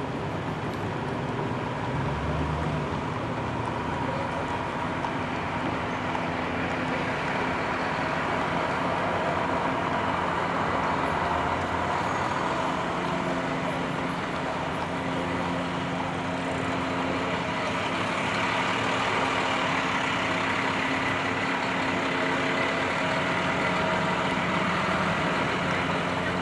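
A vehicle engine running steadily, a continuous hum with no change in pace.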